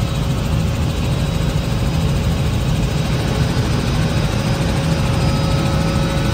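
Cabin noise of a Robinson R66 helicopter in flight: its turboshaft engine and rotors give a steady low drone with a few faint, thin whine tones above it.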